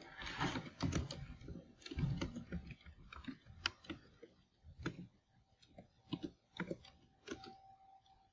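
Typing on a computer keyboard: irregular key clicks, a quick run in the first couple of seconds, then slower, scattered keystrokes, over a faint steady hum.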